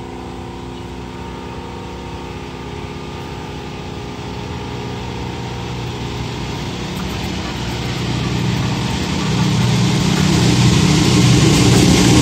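Diesel-electric locomotive hauling a passenger train on approach: its engine and the running noise of the train grow steadily louder as it comes closer, swelling most over the last few seconds.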